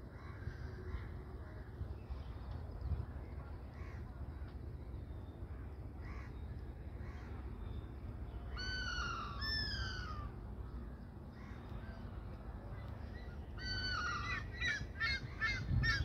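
Red-naped ibis (Indian black ibis) calling with loud, nasal, honking calls. Two drawn-out calls falling in pitch come about halfway through, then a quicker series of shorter calls near the end.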